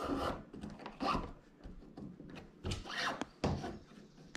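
Braided kayak rudder cord being pulled through a hole in the plastic rudder handle mechanism and drawn tight by hand: several short rubbing, sliding sounds of cord against plastic.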